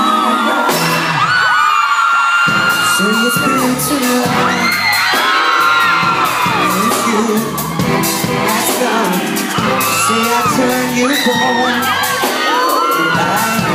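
Live pop concert music heard close to the stage: a dance beat whose full bass comes in about two seconds in, with fans screaming and whooping over it throughout.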